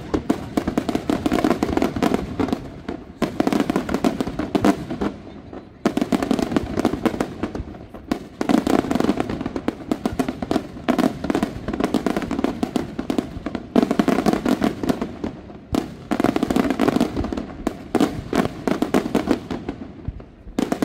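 Aerial firework shells bursting in rapid volleys: dense clusters of bangs and crackles, each a few seconds long, broken by brief lulls every two to five seconds.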